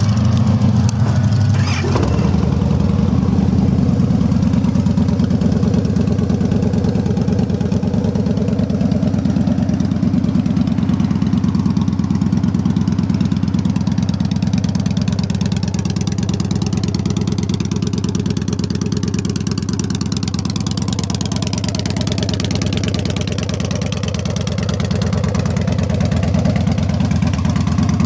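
A 2013 Victory 8 Ball Hammer's fuel-injected 106 cubic inch V-twin fires up at the start and settles into a steady idle about two seconds in. It runs through loud aftermarket-looking pipes, with a pretty aggressive sound.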